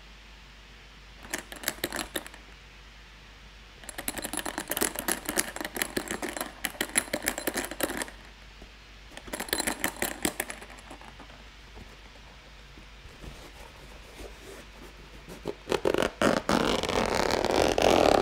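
Zipper of a hard fibre microphone case being worked by hand: several runs of rapid ticking from the zipper teeth and pull, with pauses between them. Near the end, a louder rubbing of fingers over the case shell takes over.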